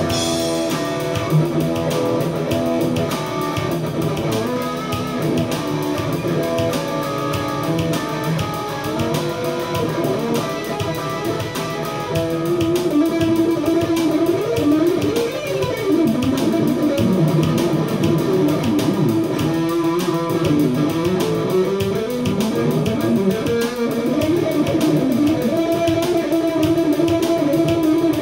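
Peavey SC-2 solid-basswood electric guitar with Kiesel alnico pickups, played loud through an amplifier in a funk jam. It plays a busy lead line of fast running notes with string bends and slides, over a steady beat.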